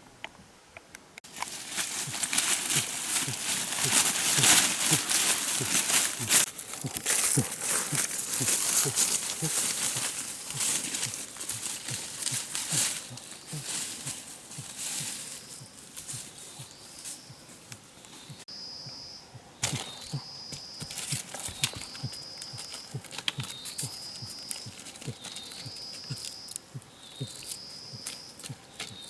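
Dense crackling and rustling over the first half. After that, a high-pitched animal call repeats about every second and a half, each a short rising note leading into a held note.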